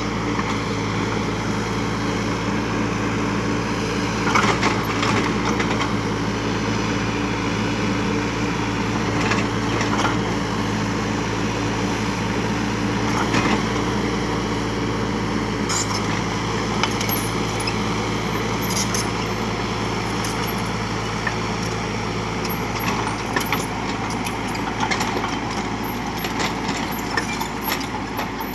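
Kubota U35 mini excavator's diesel engine running steadily under work, with scattered sharp cracks and knocks as it breaks through brush and scrub.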